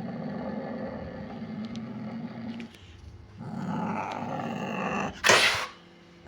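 Sumatran leopard cat growling low and rough, with a short break near the middle, then a sudden loud hiss about five seconds in.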